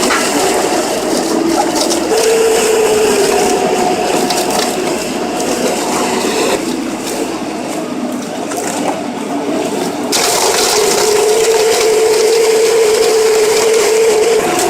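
Large industrial stump shredder running under load, grinding sand-covered tree stumps: a dense, loud grinding noise over a steady hum. The sound changes abruptly about six and ten seconds in.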